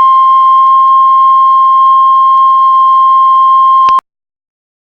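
Heart monitor flatline: one steady, unbroken high beep tone, the sign that no heartbeat is being detected, which cuts off suddenly about four seconds in.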